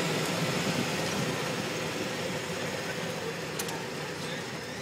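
Golf cart driving along a street, its motor running with a steady hum over road noise that eases slightly toward the end.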